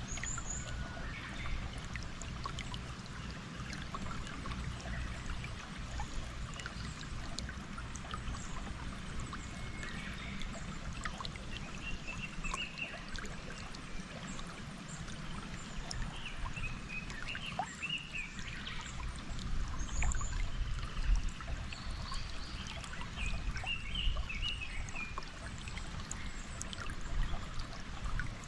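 A flowing stream with a steady trickling rush of water, and birds chirping now and then over it, in a few short clusters.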